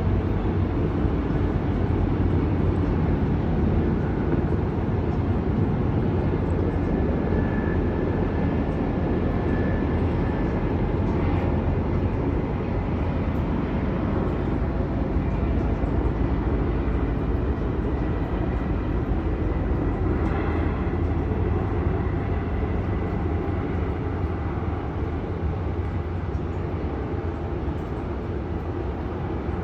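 Loud, steady low rumble of an aircraft in the sky overhead, easing off slightly near the end.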